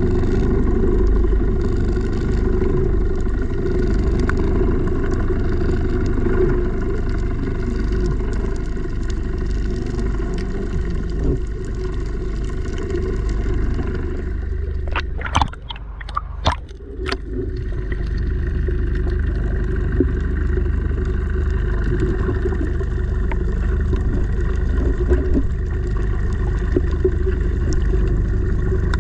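Steady low underwater rumble, heard through a camera held below the surface. About halfway through the rumble briefly dips and a few sharp clicks stand out.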